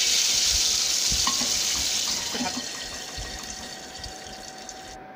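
Hot oil tadka with fried garlic, mustard seeds, dried red chillies and curry leaves poured onto dal, sizzling loudly as it hits, then dying down over a few seconds. The hiss cuts off abruptly near the end.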